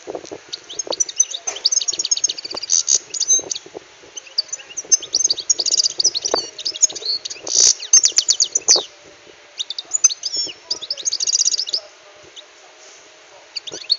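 European goldfinch singing: rapid twittering, trilled phrases of high notes in three long bursts with short pauses between them, the loudest notes about two thirds of the way through.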